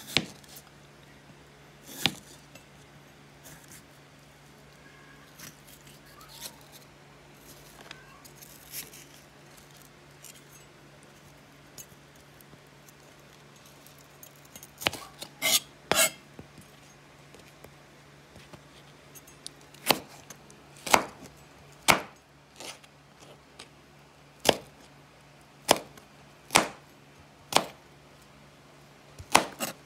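A broad-bladed kitchen knife chops a tomato on a plastic cutting board: sharp knocks of the blade striking the board. There are a few scattered knocks at first, then a quick run of several about halfway through, and then roughly one a second near the end as the tomato is diced. A faint low steady hum runs underneath.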